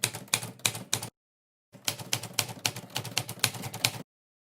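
Rapid typewriter-style key clacks, several a second, in two runs with a brief silent break about a second in, stopping abruptly about four seconds in.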